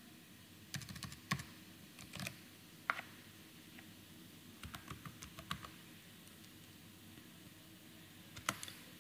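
Faint keystrokes on a computer keyboard as a short line of code is typed and corrected. They come in scattered taps: a quick cluster about a second in, single taps around two and three seconds, a short run midway, and a few more near the end.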